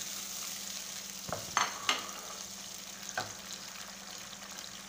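Chopped tomatoes and onions sizzling steadily in hot oil in a wok, with a few sharp knocks: three close together between one and two seconds in, and one more near three seconds.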